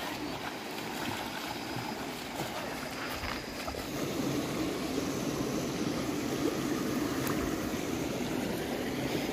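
Steady sound of river water flowing, growing a little louder about four seconds in.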